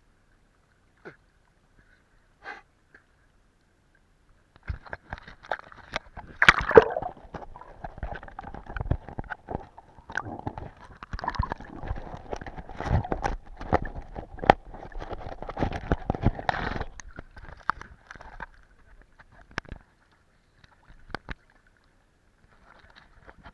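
Sea water sloshing and gurgling around a camera at and below the surface, muffled, with many sharp clicks and knocks. It is almost silent at first, turns busy about five seconds in and thins out again after about seventeen seconds.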